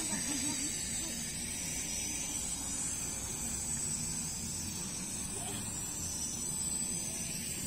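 Toy quadcopter drone in flight, its small motors and propellers buzzing steadily with a high whine.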